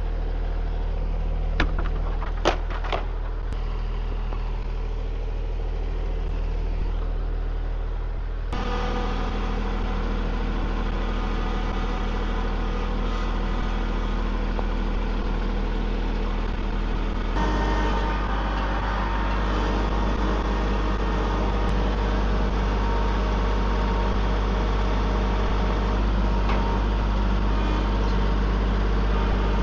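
Tractor engine running steadily while loading a log onto the sawmill, its note stepping up about eight seconds in and again about seventeen seconds in. A few sharp knocks in the first three seconds.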